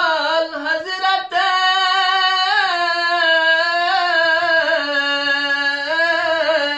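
A man's voice chanting a Balti qasida, a devotional poem, unaccompanied. The notes are long, held and wavering, with the melody sliding between them and no pause.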